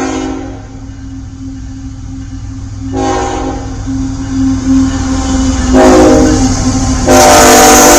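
Freight locomotive air horn sounding a series of blasts for a grade crossing: one blast ending just after the start, a long blast about three seconds in, a short one near six seconds and a long, loud one from about seven seconds, growing louder as the train approaches, over a steady hum.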